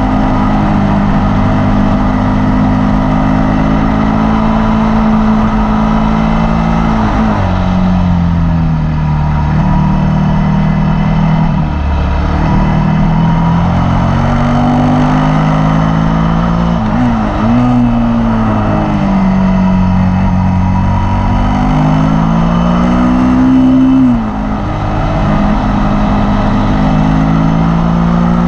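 Suzuki SV650 V-twin engine running hard on a race track, its note falling and rising with the throttle through the corners, with a couple of brief breaks in the note in the last third, over steady wind rush.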